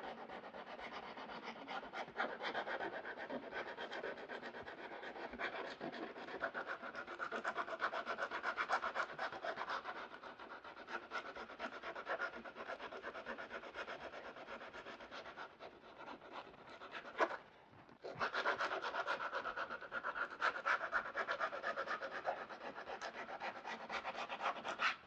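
Hand sanding with 120-grit sandpaper across a textured plastic front skid plate, a continuous scratchy rubbing of back-and-forth strokes that knocks down scuffs and gouges. It breaks off briefly about two-thirds of the way through, then resumes.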